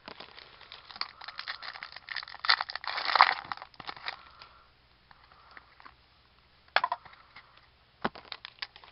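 Wrapper of a 2007 Leaf Rookies & Stars trading card pack crinkling and tearing as it is opened by hand. A dense run of crackles fills the first few seconds, loudest about three seconds in, then two short, sharp crinkles come near the end.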